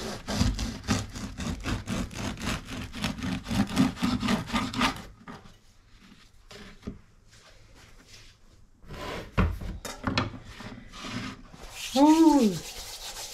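Serrated bread knife sawing through a crusty home-baked loaf on a wooden chopping board: about five seconds of rapid back-and-forth strokes. After a pause come a knock on the board and a few more scrapes, and near the end a short tone that rises then falls.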